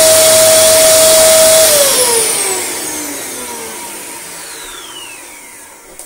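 Dyson DC24 upright vacuum cleaner running on a test run after reassembly, then switched off about a second and a half in: its motor whine falls steadily in pitch and fades as the motor spins down.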